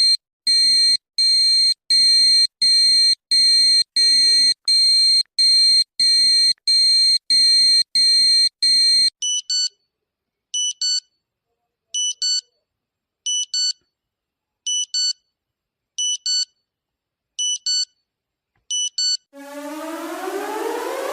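Electronic warning alarm: short high pulsed tones about one and a half times a second for some nine seconds, then pairs of quick beeps repeating about every second and a half. Near the end a civil-defence warning siren starts up, rising in pitch.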